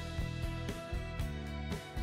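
Background music: an instrumental tune with new notes about twice a second.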